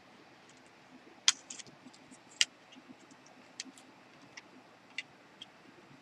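Small sharp clicks and taps of NES controller plastic parts being handled and fitted together: two louder clicks in the first two and a half seconds, then a few lighter ticks.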